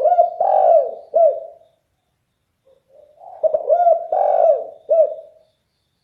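Derkuku dove cooing in a deep voice: two phrases of several coos, one at the start and a longer one beginning about three seconds in.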